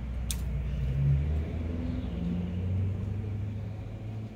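Low rumble of a motor vehicle engine, its pitch shifting up and down, with one small click about a third of a second in.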